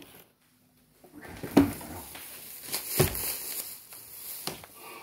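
Rustling, crinkling handling noise with a few sharp knocks, after about a second of quiet.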